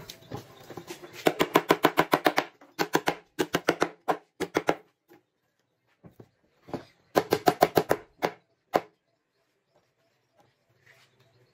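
Rapid runs of light hammer taps on a plywood box, about ten strikes a second, in several short bursts with pauses between.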